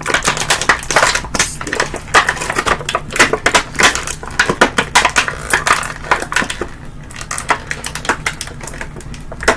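Stiff plastic action-figure packaging crackling and clicking as the figure, stuck in it, is pulled and worked free by hand.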